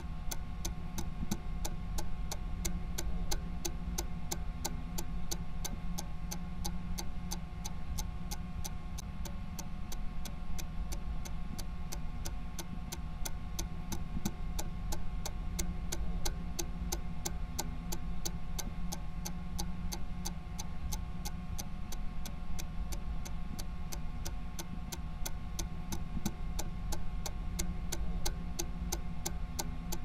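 Steady, evenly spaced ticking like a stopwatch, a few ticks a second, over a low humming drone.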